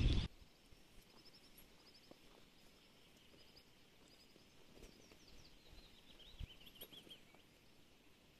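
Faint birdsong in a quiet natural setting: small birds giving short, repeated high chirps, with a quick run of falling notes towards the end. A louder rush of noise cuts off suddenly just after the start.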